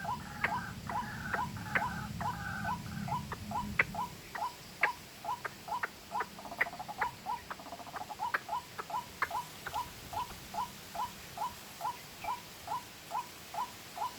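White-breasted waterhen calls: a long, regular run of short notes, about two and a half a second. For the first few seconds a second, higher series of notes and a low rumble sound with them, and a few sharp ticks stand out.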